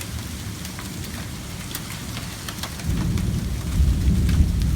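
Heavy rain and hail hitting a van, a steady patter with scattered sharp ticks of hailstones striking the body. About three seconds in, a deep rumble swells up and grows louder.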